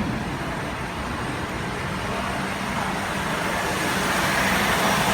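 Renault Logan's 1.6-litre 8-valve single-overhead-cam four-cylinder engine idling steadily with the air conditioning on, growing a little louder near the end. The idle is smooth and even, the misfiring and unstable idle cured.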